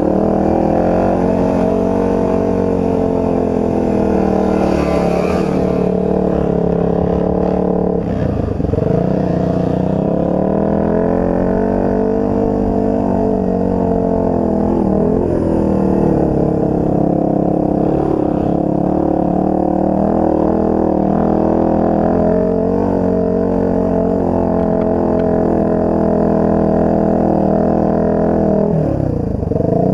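Enduro dirt bike engine running under load as it is ridden, the revs rising and falling steadily with the throttle. The revs drop off briefly about eight seconds in, again around fifteen seconds, and near the end.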